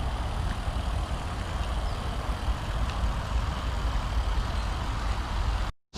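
Steady low outdoor rumble with a hiss above it, uneven and without any clear rhythm or tone, cutting out abruptly for a moment near the end.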